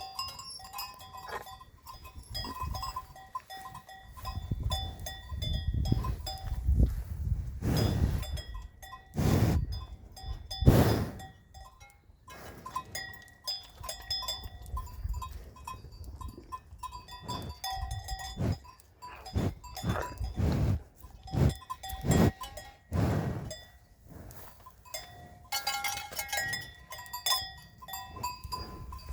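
Livestock bells clanking irregularly as the animals move and graze, with several louder low rumbling swells in the middle.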